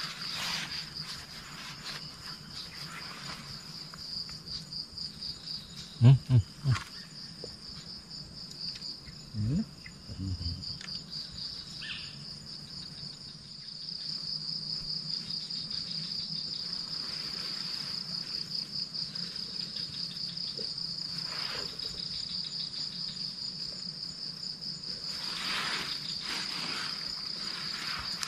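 Night insects trilling continuously in a high, rapid pulse, growing louder about halfway through. About six seconds in, three short, loud low sounds stand out, and two more come near ten seconds.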